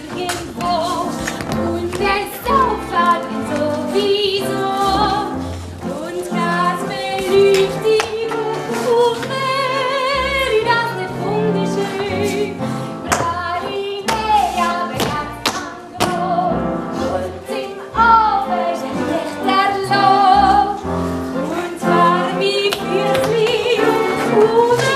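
Musical-theatre stage number: singing, with a woman's voice among the ensemble, over rhythmic instrumental accompaniment, with a few sharp percussive knocks.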